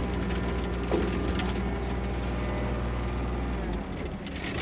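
Engine running steadily with a mechanical clatter, a click about a second in; the engine's low hum drops away near the end.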